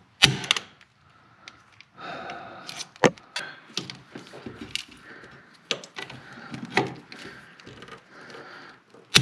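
Hand pop-rivet gun setting rivets: a sharp snap near the start and another at the very end, with smaller clicks of the tool and handling noise between.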